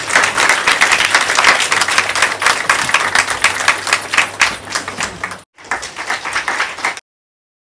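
Audience applauding: a roomful of people clapping densely and unevenly. The clapping breaks off sharply at an edit about five and a half seconds in, comes back briefly, then cuts off suddenly about a second before the end.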